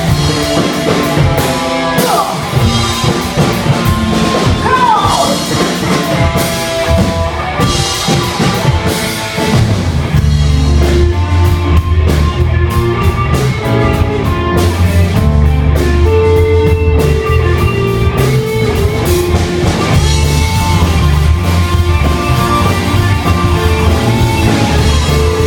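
Live rock band playing a passage with no clear vocals: drum kit and guitars, with the low end getting heavier about ten seconds in.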